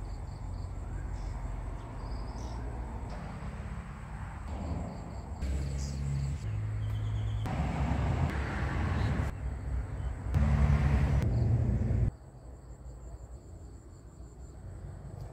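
Outdoor ambience: a low rumble with a thin, steady high chirring of insects, changing abruptly several times in level and character.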